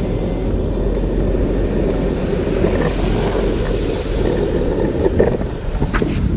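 Skateboard wheels rolling over rough concrete sidewalk: a loud, steady rumble, with a few sharp clacks near the end.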